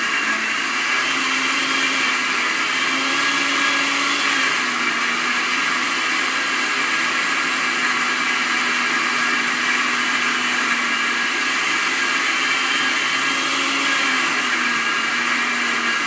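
Countertop blender with a stainless-steel base running steadily, blending a banana and almond-milk smoothie. Its motor hum shifts slightly in pitch a few times.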